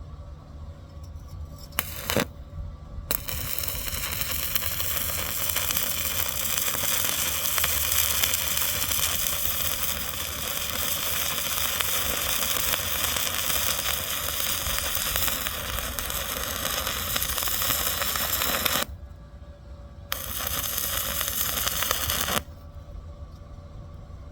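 Stick (arc) welding on a steel plate. A short strike about two seconds in, then the electrode arc burns with a steady crackling hiss for about fifteen seconds. It breaks off, restrikes for about two seconds and stops near the end, over the welding machine's low hum.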